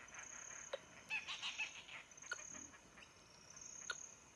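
Handheld VHF tracking receiver tuned to a GPS collar's radio beacon, giving a short pulse about every one and a half seconds over faint hiss, a sign that the collar is transmitting and being picked up. Insects chirp steadily in the background, and a bird calls briefly about a second in.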